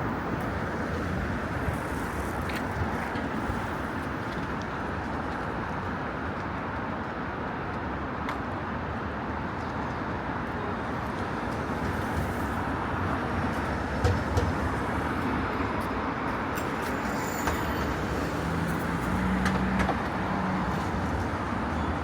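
Steady street traffic noise: passing cars and other road vehicles as a continuous rumble and hiss, with a few brief knocks about two-thirds of the way in.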